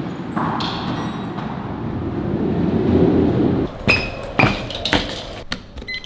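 A low rushing rumble swells and cuts off suddenly, followed by a run of five sharp metallic clinks and pings, each with a brief ring.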